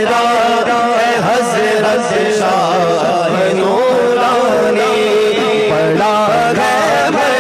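A male voice sings a manqabat (Urdu devotional song) in long, drawn-out, ornamented notes without words, amplified through a microphone. A steady low drone holds underneath.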